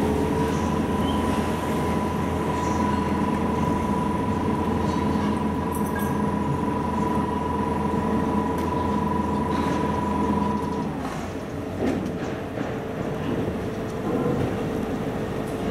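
Steady mechanical drone with a low rumble and a high held whine. Both stop about eleven seconds in, leaving a quieter drone.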